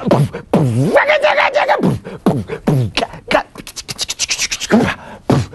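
A man beatboxing a club-style beat with his voice: deep falling "boom" kick sounds, a held note about a second in, and a quick run of clicks near the end.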